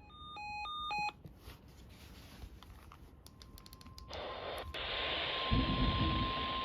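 A quick run of alternating electronic beeps, then radio static with a steady single alert tone near 1 kHz coming in about four seconds in and growing loud a second later: a NOAA Weather Radio warning alarm tone starting ahead of a new alert.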